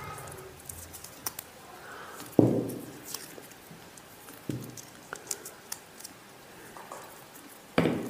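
Black PVC electrical tape being pulled off the roll and wound around a twisted wire joint: faint crackles and ticks as it unwinds, with a couple of short handling thumps, the first about two and a half seconds in.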